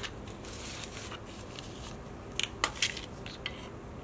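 Light clicks and taps of clear plastic rhinestone organizer boxes being handled: their lids and compartments knocking and snapping. A few faint clicks come early, and a quick run of sharper ones comes a little past halfway.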